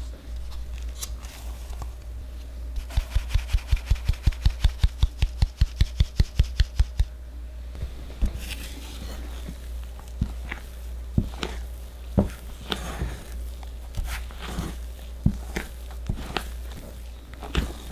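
A metal mesh sieve being tapped against a glass bowl, about five sharp taps a second for some four seconds, to sift powder through. Then a silicone spatula scrapes and knocks against the glass bowl, folding batter. A steady low hum runs underneath.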